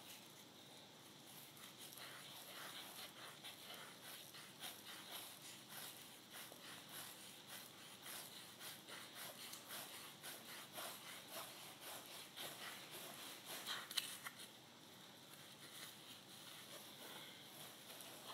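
Yarn being wound round and round a small piece of cardboard, a faint, irregular rustle as each turn slides over the card, with one sharper click about three-quarters of the way through.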